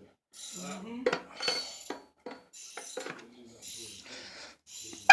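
Hand tools and metal parts clinking and scraping while working on a 208 transfer case, with several sharp metallic clinks.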